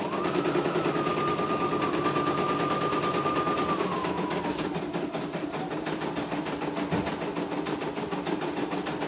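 Computerized embroidery machine running smoothly as it stitches a design: a rapid, even needle clatter. A steady whine runs over it for the first four seconds or so, then fades away.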